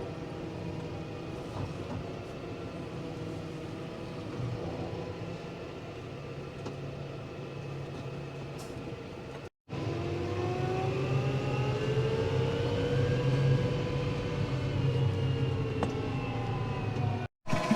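Farm tractor engine running steadily, broken by two brief silent gaps; after the first gap its pitch rises and then sinks back as the revs change.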